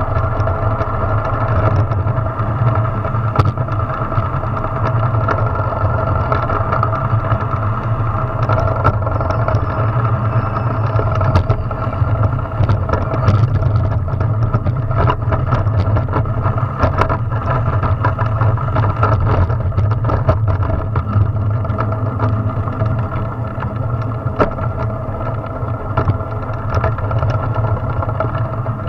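A drift trike rolling fast down an asphalt road: a loud, steady hum of the wheels on the road surface, with frequent small rattles and knocks from the frame.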